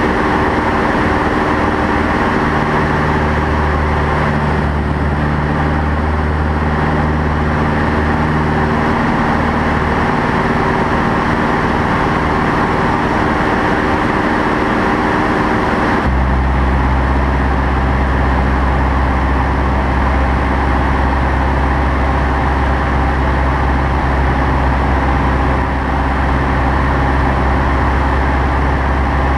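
Light single-engine propeller airplane's engine and propeller droning steadily, heard from inside the cockpit with rushing air noise. About halfway through, the engine note changes abruptly to a different steady pitch.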